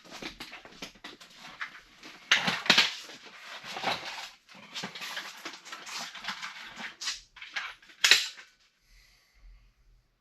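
Small metal parts clinking and rattling as Ramset nails and charges are handled and loaded, with one sharp crack about eight seconds in.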